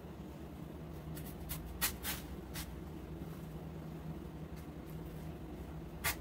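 Artificial flower stems being handled and pushed into floral foam: a few short rustles and scrapes, mostly between one and three seconds in and again near the end, over a steady low hum.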